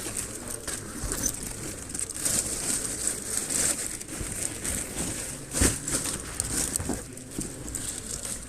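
Rustling and crinkling with many scattered light clicks and knocks, and one sharper knock about five and a half seconds in: things being handled.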